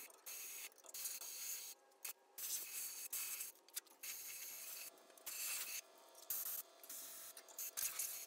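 Grinder working over the rusted steel of a VW bus frame, cleaning up the cut edges: a faint abrasive hiss and scrape that stops and starts abruptly several times.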